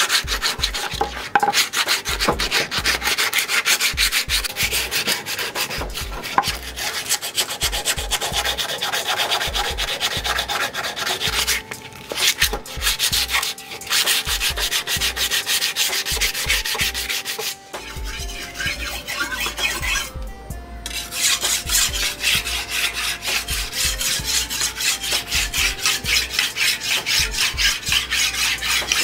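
Sandpaper rubbed back and forth by hand along a wooden axe handle, in quick even strokes with a few short pauses.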